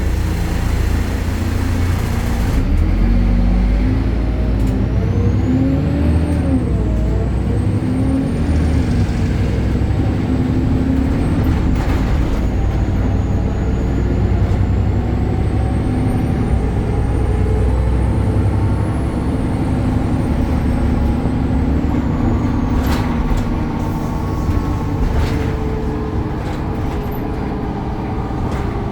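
BredaMenarini Avancity Plus city bus under way, its Deutz diesel engine and ZF automatic gearbox running with the engine note rising and falling. A hiss over the first couple of seconds, a faint high whine that rises and falls, and a few sharp knocks.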